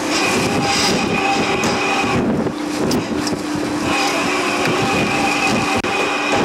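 Oyster dredge boat's machinery hauling up a chain-hung dredge basket of oysters: a steady mechanical clatter with a whining tone that drops out about two seconds in and comes back about four seconds in.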